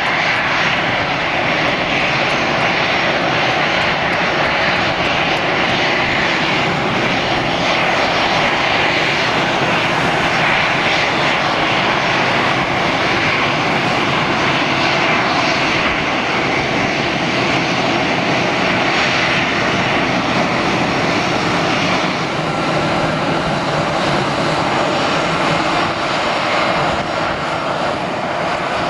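Jet engines of a taxiing easyJet Airbus A320-family airliner at low taxi power: a steady, loud rushing whine with no breaks. About three-quarters of the way through the tone shifts slightly, as another taxiing A320 takes over.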